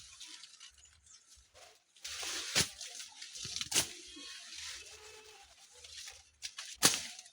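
Leafy green plants being pulled and torn by hand while gathering rabbit fodder in a maize field: rustling, with three sharp snaps a second or three apart.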